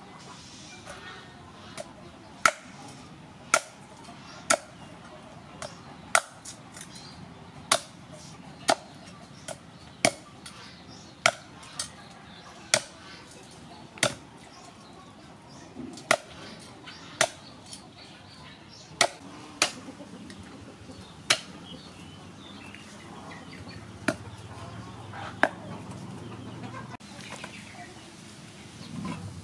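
Heavy cleaver chopping through cow's feet, bone and hoof, on a wooden chopping block: sharp chops about once a second, some twenty strikes, stopping a few seconds before the end.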